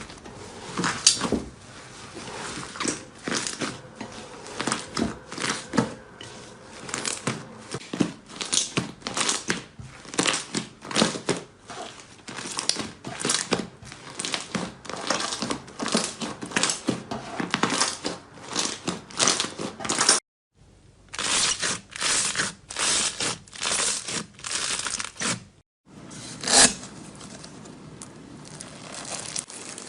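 Slime being squeezed and pressed by hand, giving a dense run of sharp crackling clicks and pops. The sound cuts out completely twice for a moment, about two-thirds of the way through.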